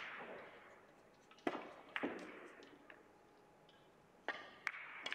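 Russian pyramid billiard balls knocking against each other and the cushions after a shot: about five sharp clicks spread across the few seconds, each followed by a short fading rush.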